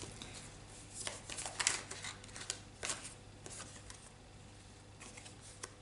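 Tarot cards being handled: a scatter of soft papery rustles and light card clicks, thickest in the first half and thinning out toward the end.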